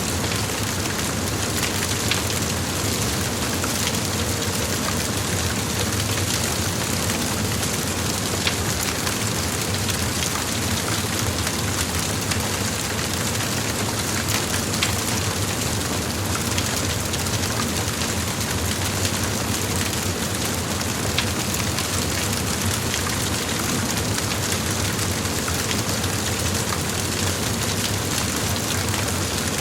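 Large fire blazing: a steady rushing hiss of flames with scattered sharp crackles and pops.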